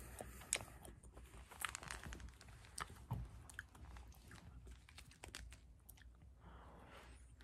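Mouth sounds of eating vanilla ice cream: bites into the ice cream and wet, sticky chewing, with many short lip and tongue clicks and smacks.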